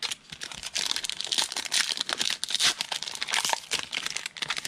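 Wrapper of a pack of football trading cards being torn open and crinkled by hand, a continuous irregular crackling.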